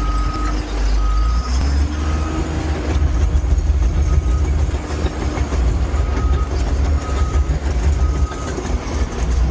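Bulldozer's diesel engine running with a deep rumble that gets heavier about a second and a half in, while a backup alarm beeps about once a second, the sign that the machine is reversing.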